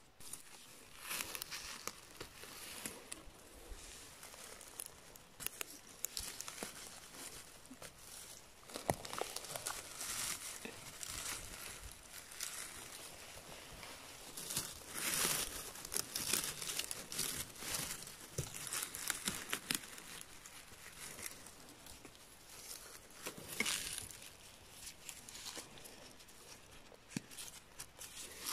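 Irregular rustling and crinkling from gloved hands picking chanterelles and brushing them clean among dry moss, twigs and grass, coming in uneven bursts with louder stretches now and then.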